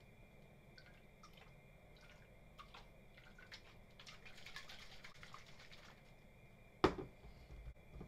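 Small plastic clicks as the blade base is unscrewed from a personal blender cup. Then thick blended pumpkin-and-millet milk pours and drips from the cup into a stainless steel saucepan for about two seconds. Near the end comes one sharp knock, the loudest sound.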